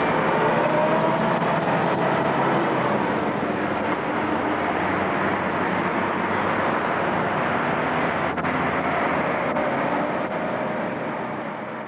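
City street traffic: a bus passing with a faint whine that slowly rises and falls, and cars going by. The sound fades out near the end.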